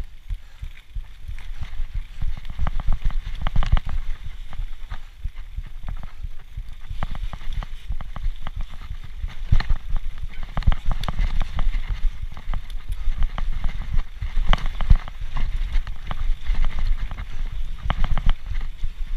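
Specialized Turbo Levo electric mountain bike riding fast down a rough dirt trail: a continuous low rumble of tyres on the ground, with frequent irregular knocks and rattles as the bike jolts over bumps.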